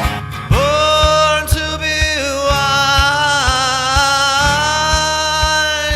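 Rock music: a single long, high lead note held for about five seconds, with a dip in pitch about two seconds in and a wavering vibrato through the middle, over a steady kick-drum beat about twice a second.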